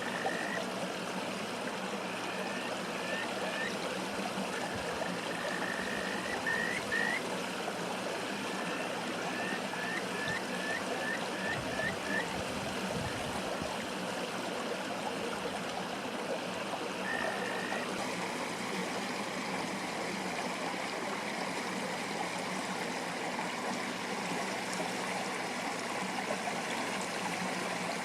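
Male kajika frogs (Buergeria buergeri) calling over a rushing stream: clear whistled notes, some long and held, others short and rising, including a quick run of about eight short 'fi-fi-fi' notes. The short notes are a rival male cutting across the long caller in a contest over females. The calls stop a little past halfway, leaving only the stream.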